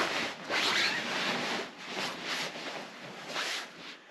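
Fabric of an inflated KilosGear air sleeping pad rustling and rubbing as a person lies down and settles on it, coming in a few separate swells.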